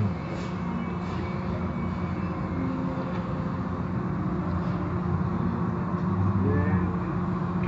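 Automatic car wash heard from inside the car: water and foam spraying and pouring over the windshield, with a steady low hum underneath, swelling slightly near the end.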